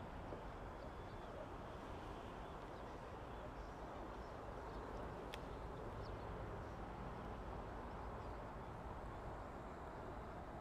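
Steady outdoor background noise with the low, distant rumble of a passenger train passing far off: an EF81 electric locomotive hauling sleeper coaches. A single sharp click about five seconds in and a few faint high chirps.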